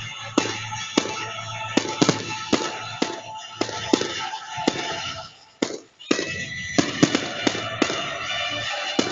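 Aerial fireworks going off in a display, with sharp bangs every half second or so, over music. Both drop out for a moment about five and a half seconds in.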